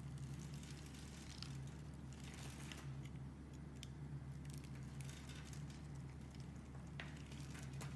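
Knife cutting into a bar of soap, with small soap cubes crackling and pattering as they break off, in irregular faint clicks over a steady low hum.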